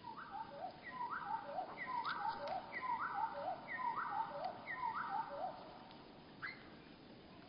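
A songbird's song of one multi-note phrase repeated about six times, slowed to a third of its speed, so it sounds low and drawn out. A single short rising note follows near the end.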